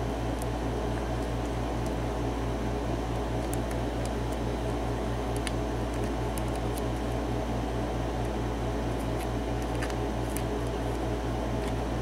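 A steady low machine hum with a fast pulsing beat, about four to five pulses a second, under faint scattered ticks of a pick and tension wrench working the pins of a pin-tumbler padlock.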